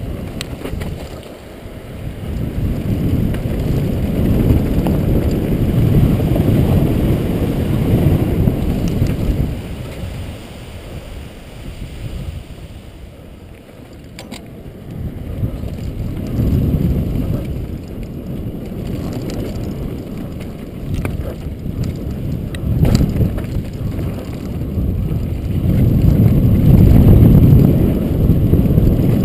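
Wind rushing over a helmet camera's microphone on a downhill mountain bike run, with the rumble of tyres on dry gravel and dirt, swelling and easing several times with speed. A few sharp knocks stand out above the rush.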